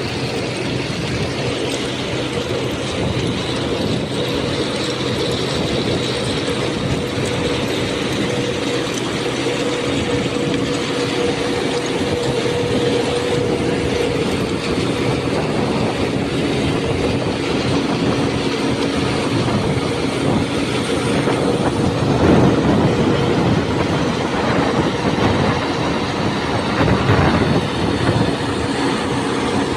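Railway ballast-boxing track machine working: a steady machine drone with a couple of held tones over rough clattering, growing louder and rougher about two-thirds of the way in and again near the end.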